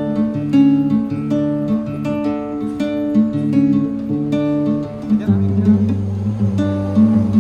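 Background music: acoustic guitar being plucked and strummed in a steady rhythm.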